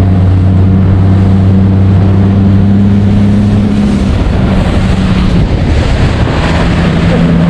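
A small fishing boat's motor running under way, with wind and water rushing past. Its steady hum wavers about four seconds in and settles again near the end.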